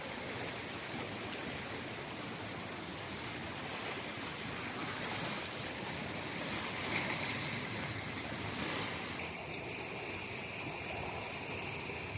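Steady rushing of flowing stream water, with a faint high steady hiss joining after about nine seconds.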